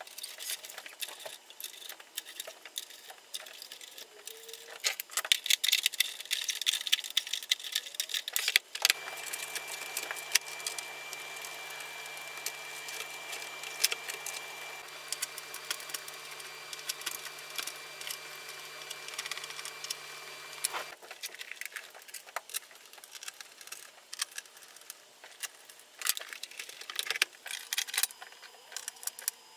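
Clicks, knocks and rattles of hands handling a synthesizer's plastic case, keyboard assembly and metal key bed during reassembly. A faint steady hum runs under the handling from about nine seconds in until about twenty-one seconds.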